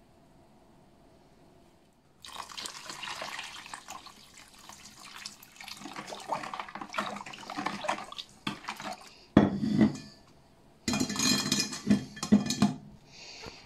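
Water poured into a plastic bowl of crushed fruit and sugar, with a spoon stirring the mixture. About nine seconds in comes a single thump, then a stainless mesh sieve clatters against a glass bowl for a second or two.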